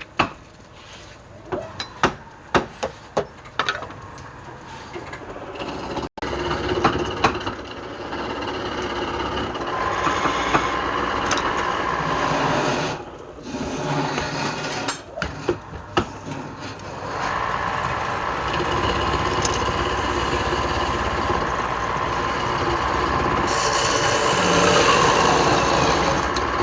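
Wood being worked: a string of sharp knocks on wood for the first several seconds, then, after an abrupt break, a power woodworking tool running steadily as it cuts into wood.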